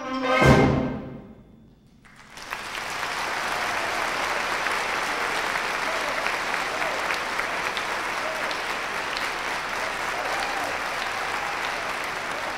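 A concert band's piece ends on a loud final hit about half a second in that rings away, then after a short pause an audience breaks into steady applause.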